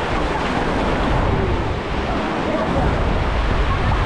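Sea waves washing against the shore, with wind buffeting the microphone in a steady low rumble.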